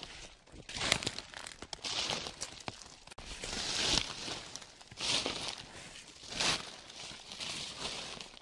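Footsteps crunching through a thick layer of dry fallen autumn leaves on a forest floor, a step about every second with a crackling rustle at each one.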